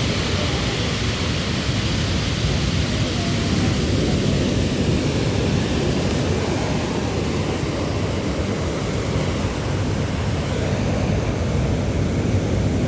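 Steady rushing noise of sea surf on the shore, with wind buffeting the microphone.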